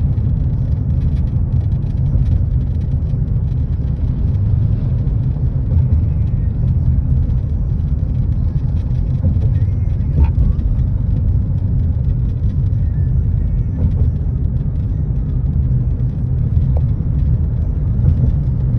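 Steady low rumble of a car's road and tyre noise with engine, heard from inside the cabin while driving at highway speed.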